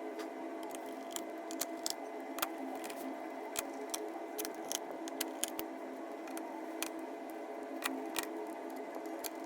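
Irregular light clicks and taps of small laptop parts and tools being handled, over a steady low hum.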